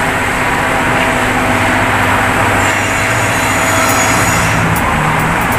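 A vehicle engine running steadily close by, under a loud, even rushing noise with a low hum.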